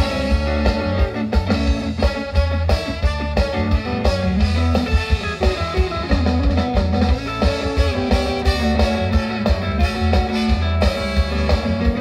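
Live ska band playing an instrumental passage: trombone, saxophone and trumpet over electric guitar, bass guitar and drum kit, with a steady pulsing beat.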